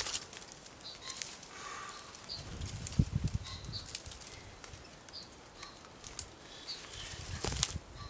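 Rustling and flapping movement with a few soft thumps, and short high chirps recurring every second or so.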